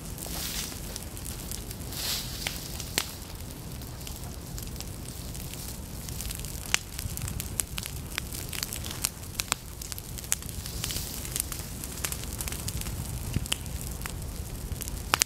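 Prescribed fire burning through dry, tall prairie forbs such as goldenrod: steady crackling with many sharp pops scattered throughout.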